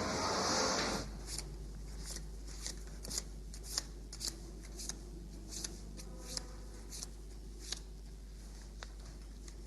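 Street traffic noise that cuts off about a second in, then a quiet room with a string of light, irregular clicks and rustles, like small objects or paper being handled.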